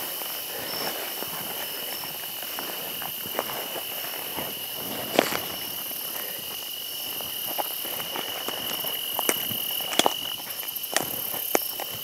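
Footsteps and leaves swishing as someone walks through tall weeds and brush, with occasional sharp snaps. A steady high insect drone runs underneath and fades out about ten seconds in.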